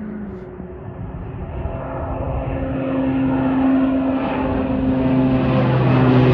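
De Havilland Dash 8 Q400 turboprop airliner at takeoff power, its twin PW150A engines and six-blade propellers growing steadily louder as it nears. The propeller tones drop slightly in pitch near the end.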